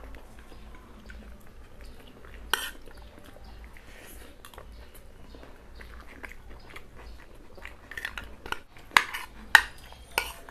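Metal spoon clinking and scraping on a plate during a meal, with chewing and mouth sounds. A sharp click about two and a half seconds in, and several louder clinks and smacks near the end.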